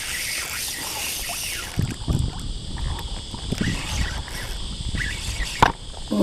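Water splashing and lapping against a kayak's hull, with wind buffeting the microphone, and a single sharp knock near the end.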